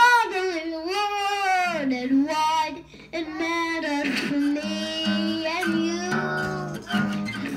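A young boy singing long, sliding notes while playing an acoustic guitar.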